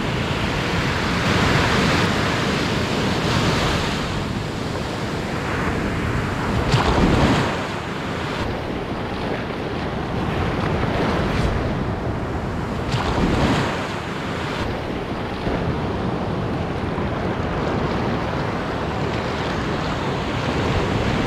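Ocean surf breaking and washing around the shallows in a continuous rush, swelling louder twice, about seven and thirteen seconds in.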